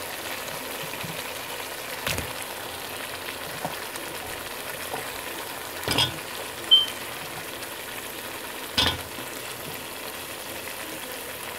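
Curry paste with grated cucumber sizzling steadily as it fries in hot oil in a metal pot. There are three sharp knocks, at about 2, 6 and 9 seconds, as potato chunks go in and a metal spoon stirs against the pot, and a brief high ping just before 7 seconds.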